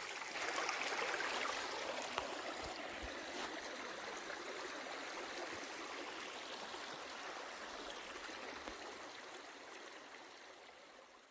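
Stream water running with a steady rushing sound that slowly fades out toward the end.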